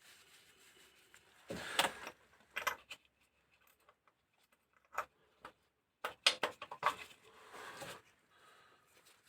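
Small metal parts and tools clinking and clattering as they are handled during cylinder head work. There are two bursts of rattling, about two seconds in and again from about six to eight seconds, with a few single clicks between them.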